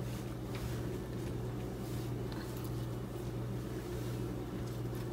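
A steady low mechanical hum fills the room, with a few faint soft rustles as shredded lettuce is set on a bread slice near the start.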